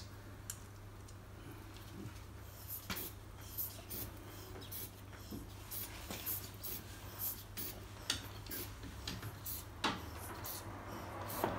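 Faint, scattered light clicks and taps from hand tools and plastic parts being handled at a car's front end, over a low steady hum.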